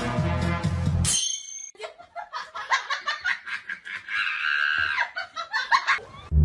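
Background music for about a second, then a person laughing in quick repeated bursts of breath until music starts again at the end.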